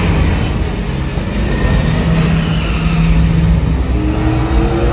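Loud car-chase sound effects from a theme-park ride's projection show, played over speakers: car engines running hard over a deep rumble.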